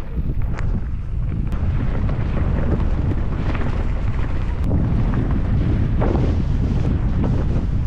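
Wind buffeting the microphone of a camera riding along on a mountain bike: a steady low rumble, with scattered clicks and knocks from the bike over rough ground.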